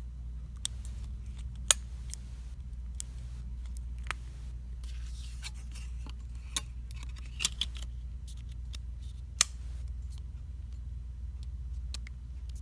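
Scattered sharp clicks and taps of small smartphone parts and tools being handled and pressed together during reassembly, the loudest about two seconds in and another near nine seconds, over a steady low hum.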